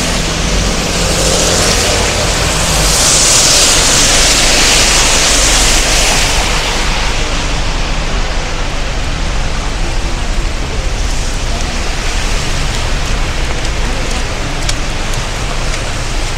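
Rain on a busy city street with traffic on the wet road: a hiss of tyres swells over the first several seconds, then eases. After that there is a steady wash of rain with a few sharp drop ticks.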